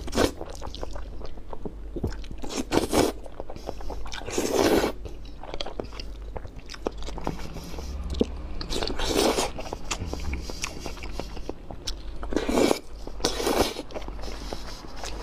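A man eating spicy instant noodles: several loud slurps of noodles a few seconds apart, with wet chewing and mouth smacks between them.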